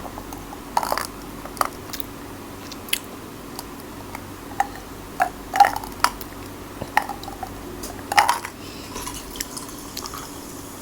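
A person chewing food close to the microphone: irregular wet mouth smacks and clicks, over a steady low hum.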